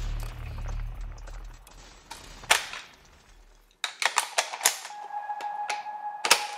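Gunshot sound effects: one sharp shot, then a rapid, uneven run of about a dozen shots, over a steady high ringing tone that sets in about five seconds in. A low music drone fades out in the first two seconds.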